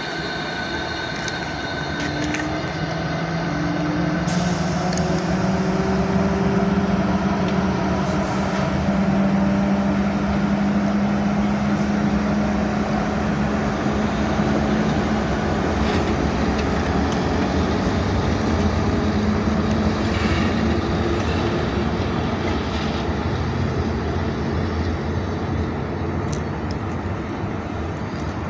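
Czechoslovak-built class 183 electric locomotive pulling away, a steady low hum whose tone rises slightly as it gathers speed, growing louder a few seconds in and then slowly fading as it moves off.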